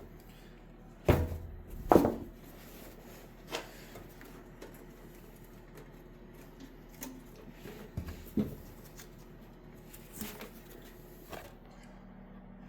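A few scattered knocks and clunks from tools and parts being handled, the two loudest about one and two seconds in, over a faint steady hum.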